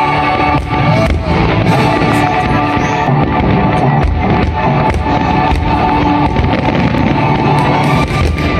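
Music playing, with fireworks bursting over it in repeated sharp pops.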